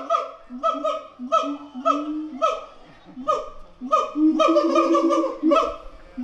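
Siamangs singing: a fast run of loud, honking bark calls, about two a second, each dropping in pitch, with a lower held note sounding under some of them.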